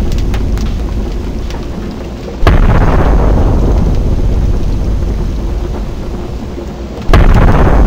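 Explosions: the rumbling tail of one blast fades out, then two sudden booms go off a couple of seconds in and again near the end, each followed by a long rumbling, crackling decay.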